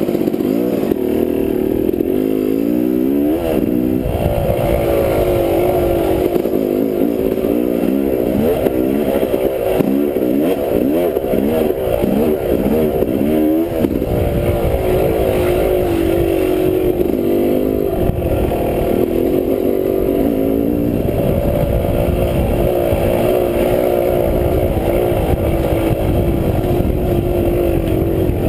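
Dirt bike engine under way on a trail, its pitch rising and falling repeatedly with throttle changes for several seconds, then settling into a steadier running note with a few smaller rises and dips.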